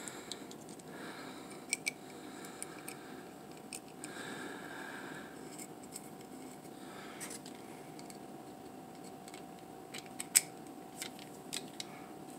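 Scattered small clicks and taps from handling a knife handle and a precision screwdriver while screws are driven back in, the sharpest click about ten seconds in. A faint steady hum runs underneath.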